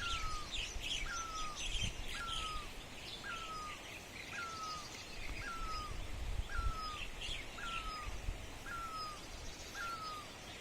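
Birds chirping: one bird repeats a short call that slides down in pitch, about once a second, while others twitter at a higher pitch, busiest in the first two seconds and again around seven seconds in. A low rumble lies underneath.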